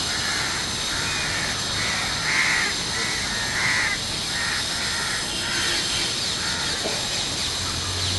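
Crows cawing over and over, about two caws a second, fading out about seven seconds in, over a steady background hiss.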